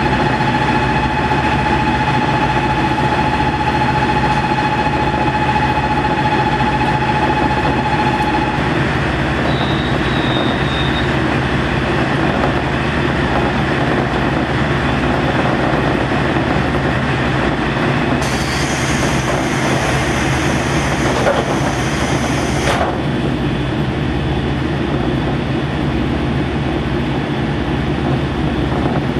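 Interior of a KiHa 40 series diesel railcar with its diesel engine running steadily. A thin steady whine holds for the first eight seconds or so, and a hiss comes in about eighteen seconds in and stops about five seconds later.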